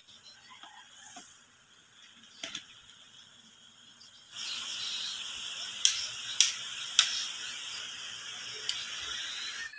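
Wood screws being hand-driven with a screwdriver into a pine rack frame, giving a few sharp clicks. From about four seconds in, a steady hiss runs under the clicks.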